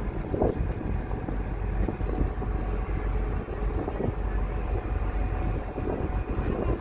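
A ferry's engines running under way, a steady low drone heard inside the wheelhouse.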